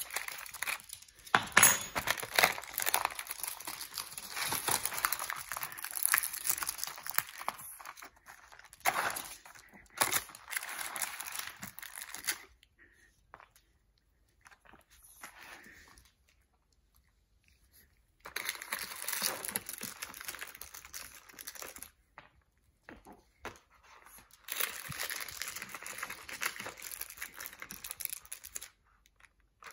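Crinkling and tearing of a cardboard dog-treat advent calendar as its doors are torn open, in three bouts with quiet gaps between them.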